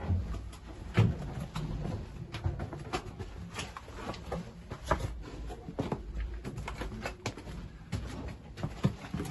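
Irregular scuffs and knocks of someone moving through a narrow rock-cut tunnel, over low rumbling handling noise.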